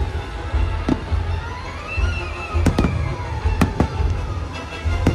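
Aerial fireworks shells bursting, about six sharp bangs spread across a few seconds, over the show's orchestral soundtrack playing from loudspeakers with sustained melodic tones and a deep rumble underneath.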